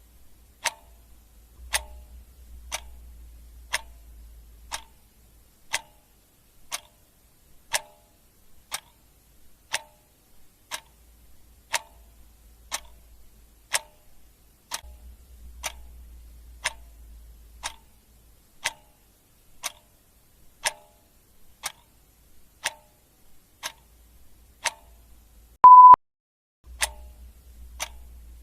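Clock ticking steadily, about one tick a second. Near the end a single short, high electronic beep cuts in, louder than the ticks.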